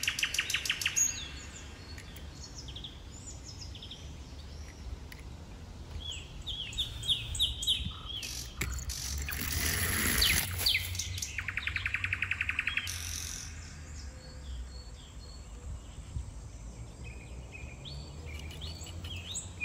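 Small birds chirping and singing, with fast trills near the start and again about twelve seconds in. A low steady rumble lies underneath, and a short rush of noise comes about ten seconds in.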